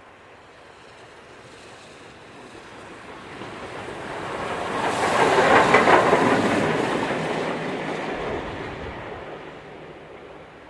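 LNER A4 Pacific steam locomotive 60019 Bittern, a three-cylinder 4-6-2, running past at speed with one coach. The noise of the engine and its wheels builds, is loudest about six seconds in as it passes close by, then fades as it goes away.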